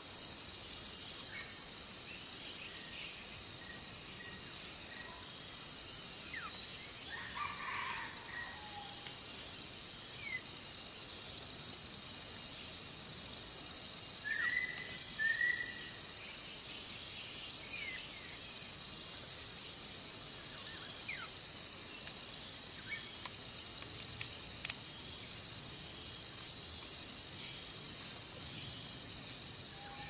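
Steady high-pitched drone of an insect chorus, with a few short, scattered bird chirps and thin quick calls over it, including a pair of chirps about halfway through.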